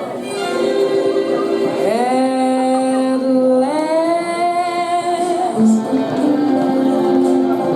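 Slow song for a first dance playing over the sound system: a woman's voice singing long held notes that slide up into each new note, over sustained backing music.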